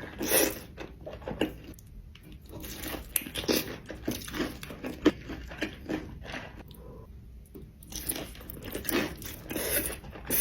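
Close-miked eating: crunchy bites into crispy fried chicken and chewing, in irregular crackling strokes, with a short lull about seven seconds in.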